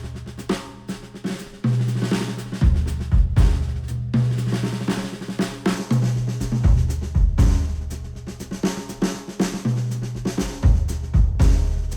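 Instrumental music with a drum kit and a deep, sustained bass line, played through headphones and recorded by microphones at the headphone.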